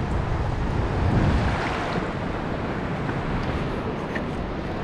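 Waves washing onto a sandy beach, with wind rumbling on the microphone. The rush swells about a second in, then settles to a steady level.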